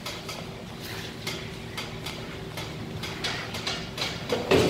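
Light metal clinks and scrapes as a bent steel motorcycle handlebar is levered straight with a pipe slipped over it, with a louder knock near the end.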